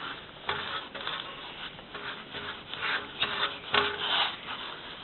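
Paintbrush rubbing and scraping across a surface in a series of irregular strokes.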